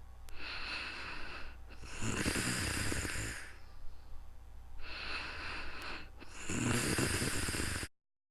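A sleeping person snoring: two slow breath cycles, each a quieter breath followed by a louder snore. The sound cuts off abruptly just before the end.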